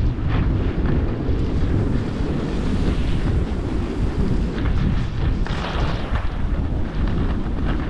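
Wind buffeting the action camera's microphone during a ski descent, a loud, steady low rumble, with the hiss of skis sliding on groomed snow swelling every few seconds.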